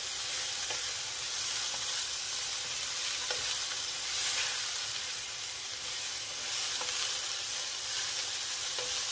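Stir-fried vegetables sizzling in a non-stick pan while being stirred with a wooden spatula: a steady hiss with a few light taps of the spatula against the pan.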